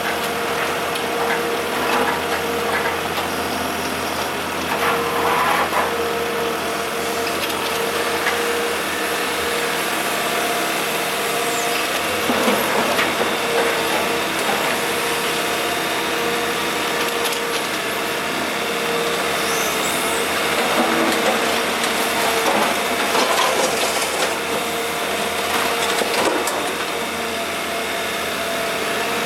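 Kobelco SK125W wheeled hydraulic excavator's diesel engine running steadily with a constant whine. Irregular clunks and scrapes come now and then from the bucket working broken asphalt rubble.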